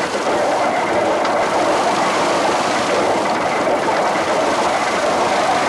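Old wooden drum threshing machine running steadily, its drum clattering as sheaves of corn are fed in and threshed.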